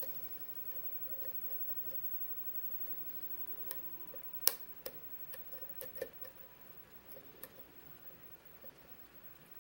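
Lock pick clicking and scraping against the pin stack inside a Kwikset pin-tumbler lock during single-pin picking. Irregular small clicks, bunched in the middle with the sharpest about four and a half seconds in.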